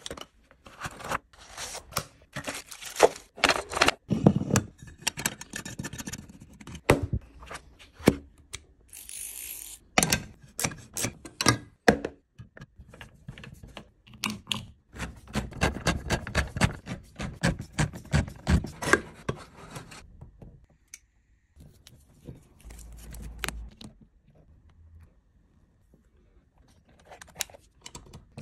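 Hand-tool handling sounds: a Wera Kraftform Turbo insulated screwdriver and its bits handled in a fabric tool roll, then the screwdriver driving screws into a metal box, giving scattered clicks, knocks and scrapes with a run of quick clicking in the middle.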